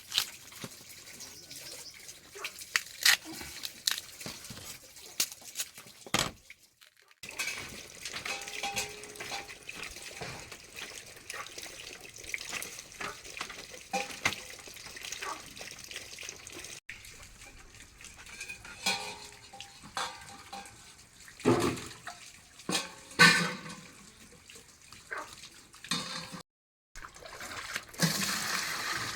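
Water sloshing and splashing, with many scattered knocks and clicks; the sound drops out briefly twice.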